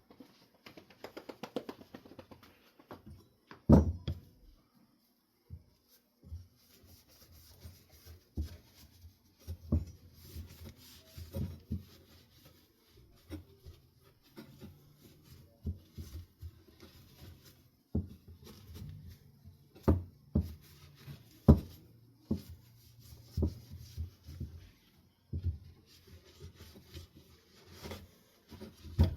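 Wooden ceiling-fan blade being handled and cleaned on a desk: irregular knocks and taps of wood, with softer rubbing between them. The loudest knock comes about four seconds in.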